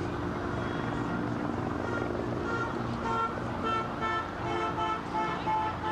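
City street noise: a steady traffic rumble, with a string of short, high-pitched tones repeating every few tenths of a second from about two seconds in.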